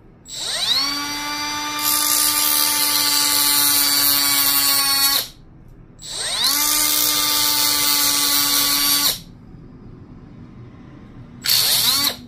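Small high-speed rotary tool cutting into a plastic speaker housing. It runs three times: each run begins with the motor's whine rising as it spins up, then holds a steady high whine with a grinding hiss while the bit cuts. The first run lasts about five seconds, the second about three, and the last is a brief burst near the end.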